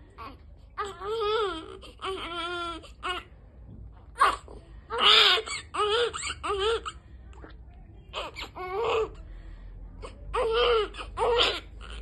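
Newborn baby crying in a string of short, wavering cries with brief pauses between them, during a gastric wash through a tube in its mouth.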